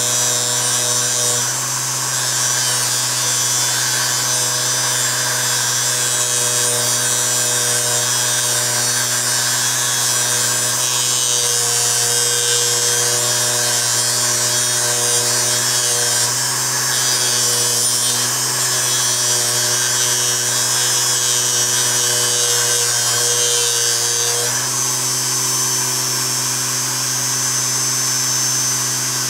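Small TM variable-speed bench polisher's electric motor running steadily while a Scotch-Brite wheel on its spindle scrubs surface rust off a steel socket, with a steady hum under a hiss of pad on metal. The motor barely dips in speed under the load, and its tone changes slightly about 24 seconds in.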